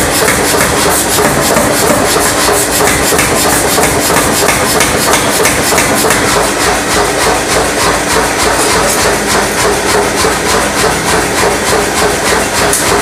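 Power hammer striking a red-hot steel bar in rapid, steady repeated blows while it is forged into nippers, with a steady hum underneath.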